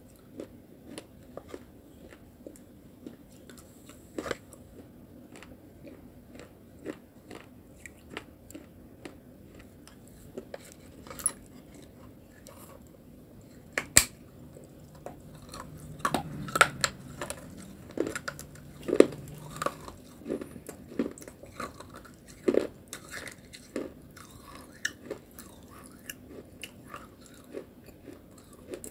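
Close-miked biting and chewing of baked clay pottery coated in wet clay paste: an irregular run of small crisp crunches and clicks. There is one sharp click about halfway, and the crunching grows busier and louder soon after.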